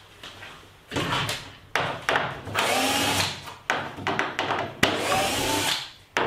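Cordless drill-driver backing screws out of a kayak deck in about five short runs, the motor whine rising and falling with each screw.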